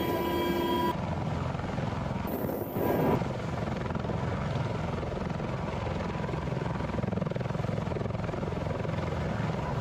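Z-20 helicopter with its five-blade main rotor hovering, a steady beating rotor and turbine noise. In the first second a few steady whining tones sit over it, ending abruptly, and about two and a half seconds in a brief rushing surge stands out.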